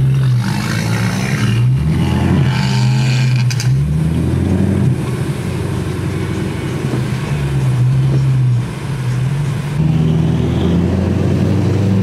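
Car engines revving, their pitch rising and falling several times, then settling into a steadier drone that grows louder near the end.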